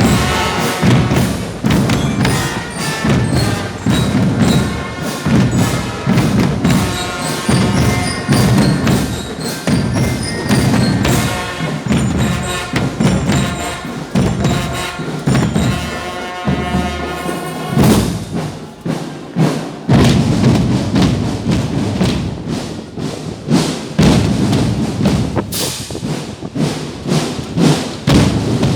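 Music with a quick, steady drum beat and a melody over it; about two-thirds of the way in the melody drops away and the drumming carries on.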